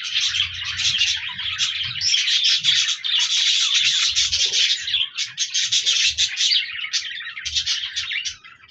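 A group of budgerigars chirping and warbling in a dense, continuous chatter of quick overlapping calls, which dies away near the end.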